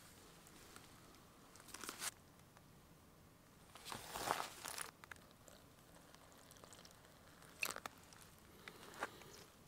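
Quiet crunchy rustles and handling noises of a person preparing bread ingredients in a plastic camp cup on dry pine-needle ground: a short rustle about two seconds in, the loudest lasting about a second around four seconds in, and a few brief clicks near the end.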